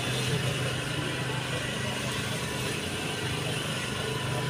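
A steady low engine-like hum with an even background hiss over it, unchanging throughout.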